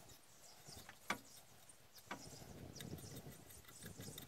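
Faint metallic clicks and ticks as nuts are spun on by hand onto the water pump pulley studs, with a sharp click about a second in and another about two seconds in.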